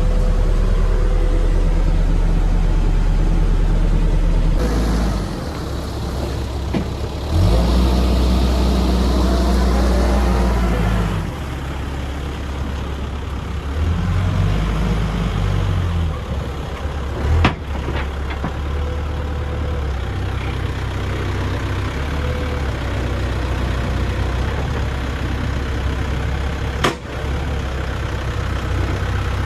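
Volvo BL71 backhoe loader's diesel engine running, its speed rising and falling several times. A hiss comes in the louder stretch in the first half, and there are two sharp knocks later on.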